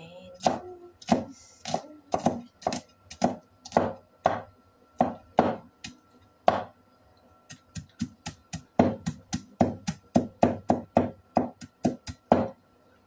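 Chinese cleaver chopping garlic and onion on a wooden cutting board: sharp knocks of the blade on the board, about two a second, a short pause about six and a half seconds in, then faster chopping about three a second.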